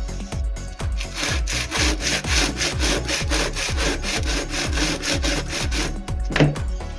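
Saw cutting through wood in quick, even back-and-forth strokes for about five seconds, starting about a second in, over background music with a steady beat.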